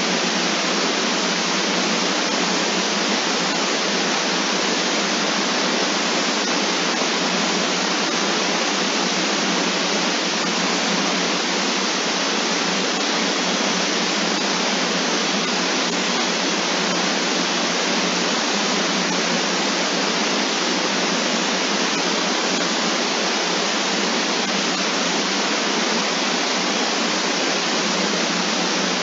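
Steady, unchanging hiss of filtered noise, like static, with no game sound in it.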